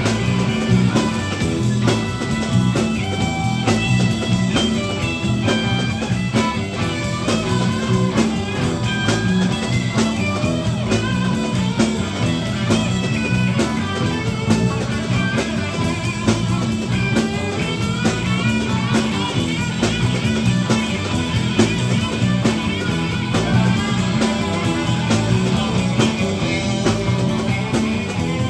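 Live rock band playing an instrumental passage: an electric lead guitar plays a melodic line over bass, drums and rhythm guitar with a steady beat.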